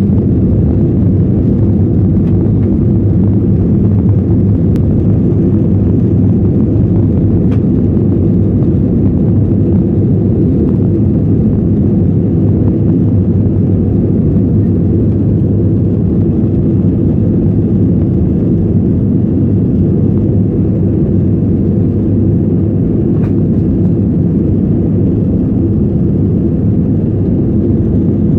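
Airplane engines running with a steady, loud low rumble during takeoff.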